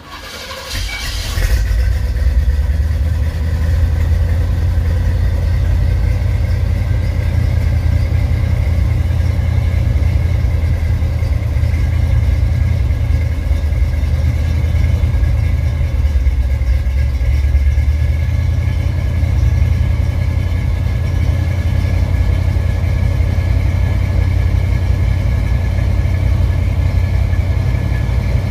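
1974 Chevrolet Impala engine on a cold start: it catches right at the start, builds up over the first two seconds, then settles into a steady idle with a deep low rumble.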